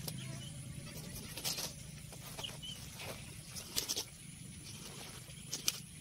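Irregular rustles and sharp clicks, a few seconds apart, over a faint low hum that fades early on, with a couple of brief faint chirps.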